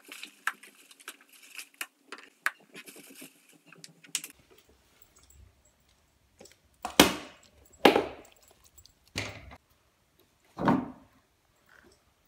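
Plastic bag rustling and bottles and tubes clicking as they are set down on a wooden floor. Later come four louder knocks spread over about four seconds as plastic toiletry bottles are knocked over onto the floor.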